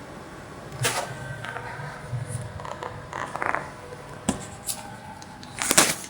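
A few sharp knocks and clatters of objects being handled, with a short scraping sound midway; the loudest clatter comes near the end.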